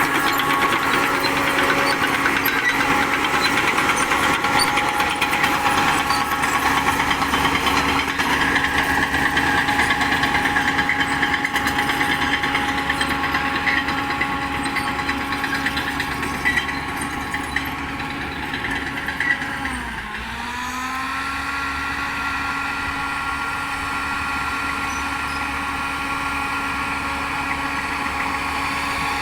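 Diesel engine of a Shantui DH10B2 mini bulldozer running steadily. About two-thirds of the way in, the engine speed dips sharply and recovers, then it runs on a little quieter.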